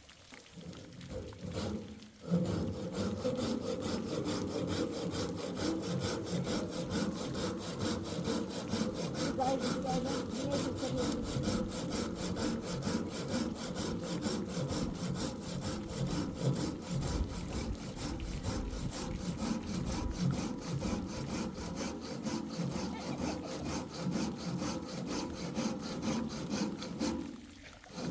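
Wood being sawn by hand: a continuous, even, rhythmic rasping that starts about two seconds in and pauses briefly near the end.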